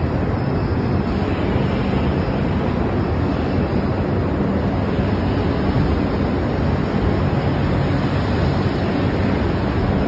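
Steady, loud din of a truck assembly plant floor: a constant wash of machinery and ventilation noise with a low, even hum underneath.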